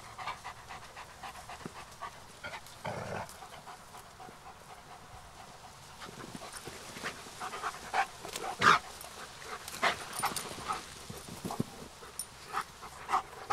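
A dog panting, with scattered short clicks and knocks; the loudest about nine seconds in.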